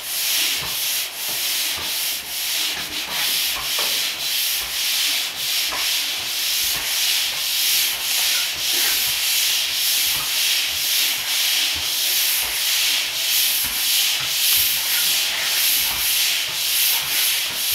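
Manual drywall pole sander with a round head pushed back and forth over dried joint compound in quick, even strokes of about two a second, a scratchy hiss of abrasive on mud. It is a light sanding pass to knock down the ridges and edges of the mud, not grinding into it.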